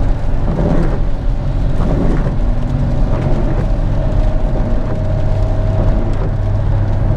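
Steady cabin noise of a car driving on wet asphalt: a low engine hum under the hiss of tyres on the wet road, with a faint steady whine.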